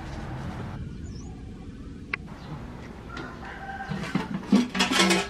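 Chickens clucking, loudest over the last second or so.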